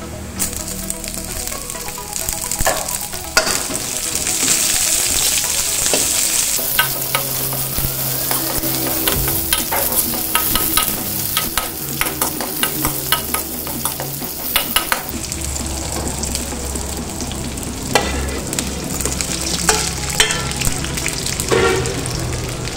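Sliced red onions sizzling in hot oil in a carbon-steel wok, stirred with a metal spatula that clicks and scrapes against the pan; the sizzle jumps up as the onions go in and is loudest in the first several seconds. Near the end, pieces of duck are turned in the wok the same way.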